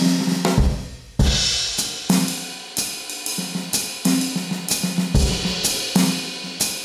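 Medeli MZ928 electronic drum kit, played with sticks on its "Greasy Blues" preset kit: a drum groove of snare, bass drum, hi-hat and cymbals. There is a brief break about a second in before the groove picks up again.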